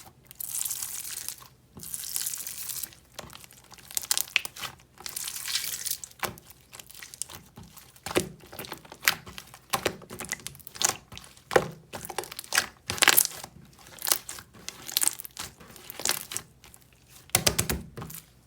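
Crinkling, rustling handling noise, followed by a long irregular series of sharp clicks and taps.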